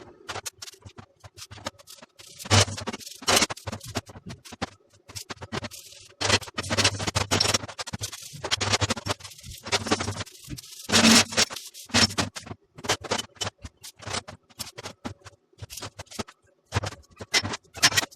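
Irregular scraping and knocking from hands-on workshop work, quick clicks and scrapes coming in uneven spurts with short pauses between.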